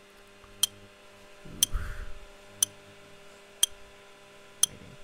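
LG microwave oven running with a steady hum, and a sharp tick about once a second. A brief low rumble about a second and a half in.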